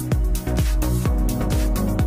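Electronic dance music with a steady kick drum, about two beats a second.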